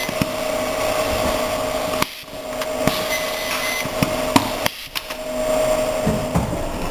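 Automatic box-labelling line with a Domino M200 print-and-apply labeller running: a steady conveyor and machine hum, with sharp clicks and knocks as the labeller's applicator works on passing boxes. A short high whine comes about three seconds in.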